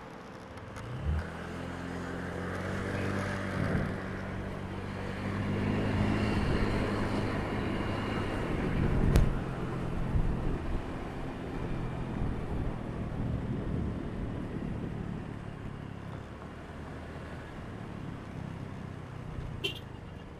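Road traffic passing: a vehicle's low engine note builds up, is loudest about nine seconds in with a sharp click, then fades away as the vehicle passes. A brief small click comes near the end.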